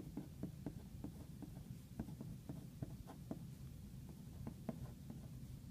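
A pen writing on paper: irregular light taps and scratches of the tip, a few a second, over a low steady hum.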